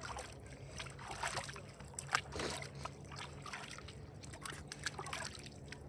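Hands moving in shallow lake water, sloshing and dribbling with a few small splashes, the clearest about two seconds in, over a low steady hum.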